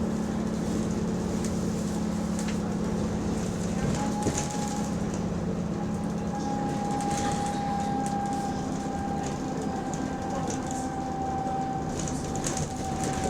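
Bus engine and drivetrain running under way, heard from inside the passenger saloon: a steady low drone with a steady higher whine that comes in about four seconds in and holds. This bus has an exhaust leak.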